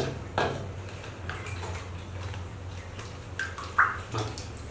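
Light splashing and dripping of water in a plastic basin as a baby monkey is bathed, with a couple of sharp clicks near the start and a brief high squeak shortly before the end.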